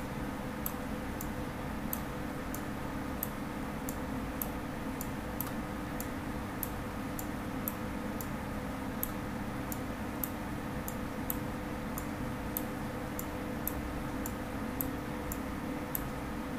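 Faint, evenly spaced ticking, about one and a half ticks a second, over a steady electrical hum.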